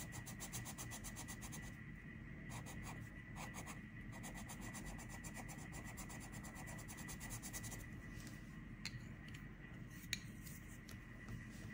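Colored pencil scratching on paper in quick back-and-forth shading strokes, pausing briefly now and then. Two sharp clicks near the end as the pencils are switched.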